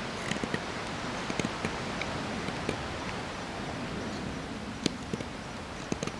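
Knife scraping shavings off a stick of fatwood: light irregular scrapes and small clicks, with a sharper click near the end, over a steady outdoor hiss.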